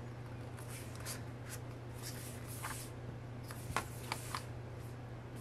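Paper and card items being handled: light rustling swishes and a few small clicks, the sharpest a little before the end, over a faint steady low hum.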